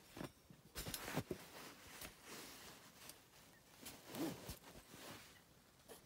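Faint handling noise: soft rustling and a few light knocks from a hand moving the camera and the trumpet on cloth, grouped about a second in and again around four seconds.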